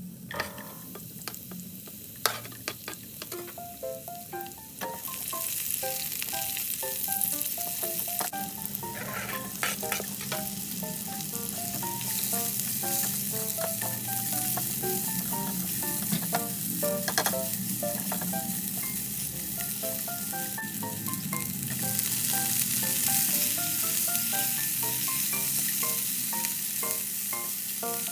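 Vegetables stir-frying in a hot pan, sizzling steadily. A few knocks come in the first seconds, and the sizzle grows louder about five seconds in.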